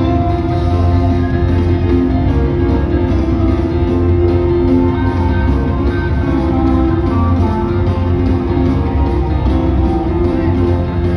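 Rock band playing live through an arena PA, with guitars, keyboards and drums over a strong, steady low end, heard from within the audience.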